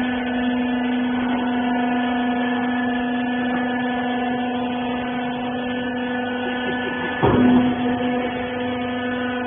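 Steady machine hum of a hydraulic clothing baler's power unit running, holding one low pitch, with a brief louder surge about seven seconds in.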